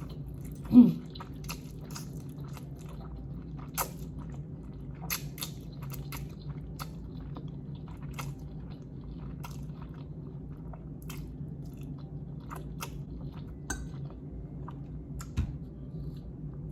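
A person chewing instant noodles close to the microphone, with many small wet mouth clicks and smacks spread unevenly through. About a second in comes a short, loud, low vocal sound that falls in pitch.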